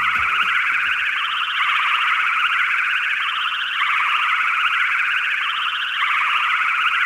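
Cartoon flying-saucer sound effect: a high electronic warbling tone, even in loudness, wavering slowly up and down about every two seconds.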